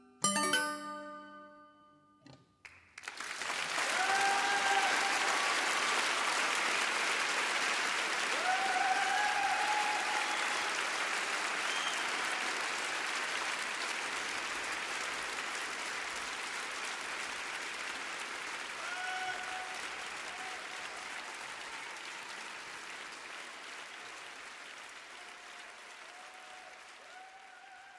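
A last few chime-like music notes ring out at the start. Then a crowd applauds and cheers, with a few short shouts rising above it, and the noise slowly fades away toward the end.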